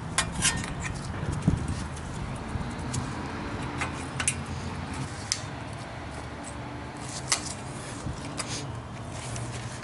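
Scattered sharp metallic clicks and light scrapes of pliers on a cotter pin as it is worked out of the tie rod end's castle nut, with a small cluster of clicks about seven seconds in. A steady low hum underneath.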